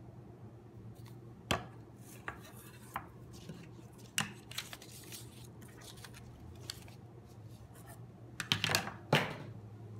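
Knocks and clicks of a plastic glue bottle and a craft paper punch being set down in a small plastic tray on a wooden table, with a louder clatter near the end as the tray is taken up and moved.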